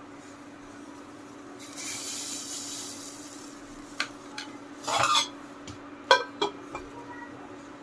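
Rice-flour batter hisses as it is poured into a very hot, oiled clay pot, a sizzle lasting about a second and a half. A steel plate is then set over the pot as a lid, scraping and clinking against the rim a few times. A steady low hum runs underneath.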